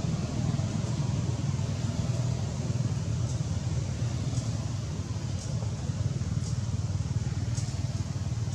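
Steady low rumble of outdoor background noise, with faint short high chirps repeating about once a second from about three seconds in.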